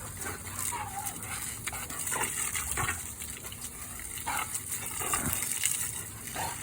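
Garden hose spray hissing steadily while a Rottweiler snaps and bites at the water, with short sharp mouth sounds and a brief whine about a second apart.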